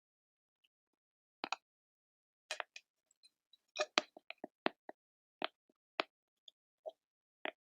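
Sparse, irregular crackles: single sharp pops and clicks with silence between them, starting about one and a half seconds in and coming thickest around the middle.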